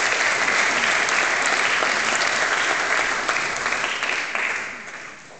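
Audience applauding in a large hall: steady clapping from many hands that dies away near the end.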